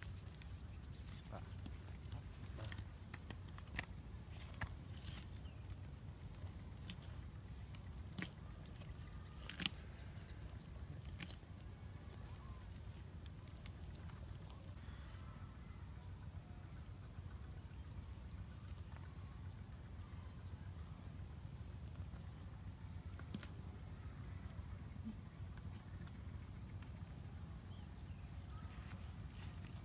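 Steady high-pitched insect chorus over a low steady rumble, with scattered faint clicks and snaps in roughly the first ten seconds.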